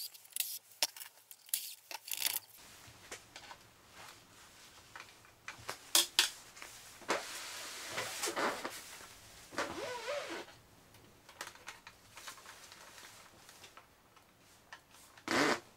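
Handling of the electric unicycle's plastic top shell as it is worked loose: scattered clicks and knocks, a longer scraping rub in the middle with a short creak after it, and a louder knock near the end.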